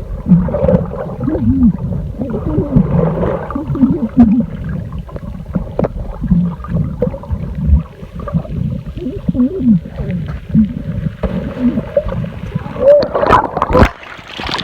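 Water gurgling and sloshing close around the microphone while swimming, with short wavering glides in pitch.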